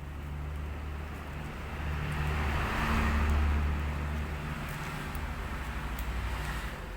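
A motor vehicle passing by: a low engine hum and road hiss that build to their loudest about three seconds in, then slowly fade.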